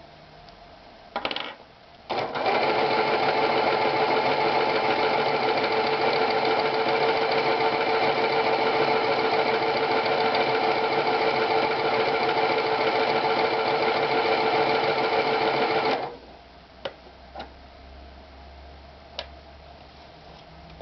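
Jaguar Mini 281 sewing machine running at a steady speed for about fourteen seconds, then stopping abruptly. A click comes just before it starts, and a few light clicks follow after it stops.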